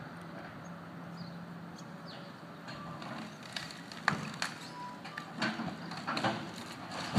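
Demolition of a brick tower: masonry and timber knocking and clattering down in irregular bursts, with a sharp crack about four seconds in and the knocks coming thicker near the end. A steady machine engine hum fades after about two seconds.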